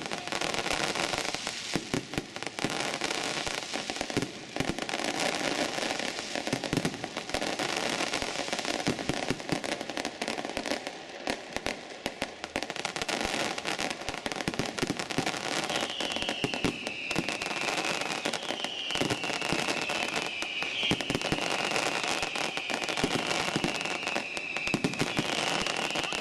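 Aerial fireworks display: a dense, continuous crackling and popping of bursting shells. In the second half, a run of high falling whistles repeats over it every two to three seconds.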